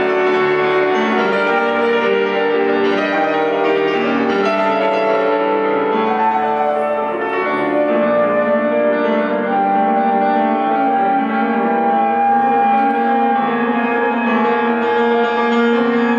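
Alto saxophone and grand piano playing a classical sonata movement together. The saxophone holds one long note for several seconds about halfway through.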